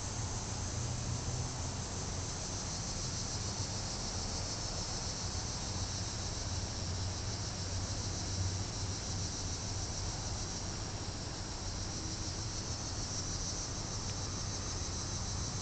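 Steady rain falling, with a continuous high-pitched insect chorus running over it.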